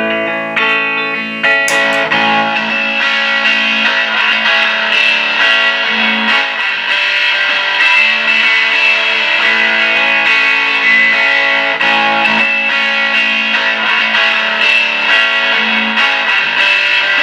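Electric guitar loop with a dirty overdriven tone from a Z.Vex Distortron pedal, played through a Dr. Z Maz 18 NR head into a pine 4x10 cabinet with only two of its WGS Veteran 10 speakers connected. It plays continuously, and the tone thickens and grows a little louder about two seconds in.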